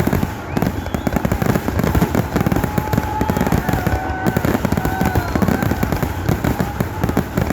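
Fireworks finale: a dense, unbroken barrage of overlapping bangs and crackles from many shells going off at once.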